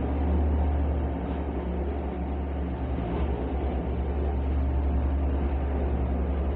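A steady low mechanical drone with an even rushing noise over it, unchanging throughout.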